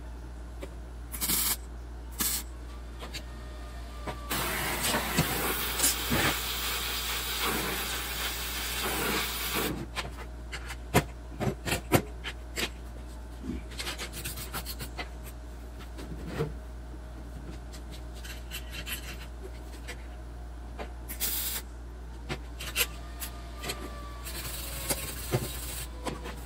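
MIG welder on steel plate: two brief tack welds, then a steady bead of about five seconds, then another short tack near the end. Between and after the welds come sharp metal clicks and knocks from a chipping hammer striking the welds.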